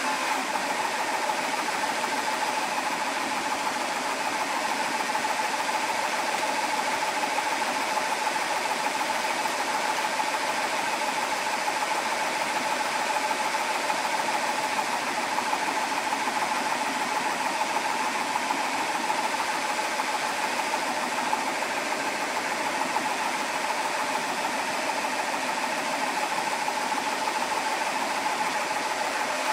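GX CS4 portable high-pressure PCP compressor running steadily under load, pumping air through an inline filter into an air rifle's bottle as it fills from 150 bar. An even mechanical whir with a steady hum-like tone and no change in level.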